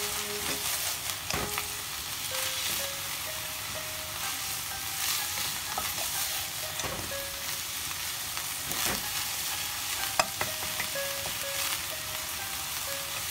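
Slices of meat sizzling in a nonstick frying pan, stirred and scraped around with a wooden spatula. There are a few sharp clacks of the spatula on the pan, the loudest about ten seconds in.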